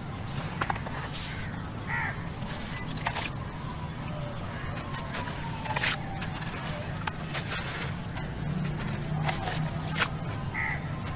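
A hand-sized ball of dried sand-cement being crushed and crumbled by hand into wet sand in a tub: gritty crunching with a few sharp cracks.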